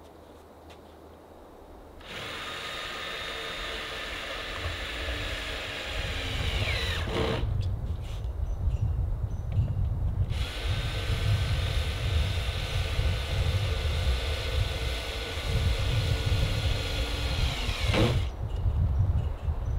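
Electric power drill running in two long stretches, each a steady whine that winds down in pitch as the trigger is released, about two seconds in and again near the end. An uneven low rumble runs underneath for most of it.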